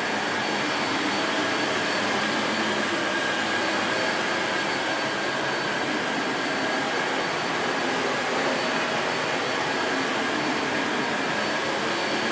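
Dyson Light Ball bagless upright vacuum cleaner running at maximum suction with its brush roll on carpet: a steady whooshing airflow with a high, even motor whine over it.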